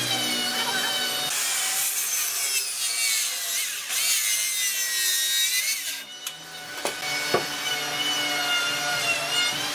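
Power tool cutting wood, its motor whine wavering as the load changes, with the sound shifting abruptly a few times. Two sharp knocks come about seven seconds in.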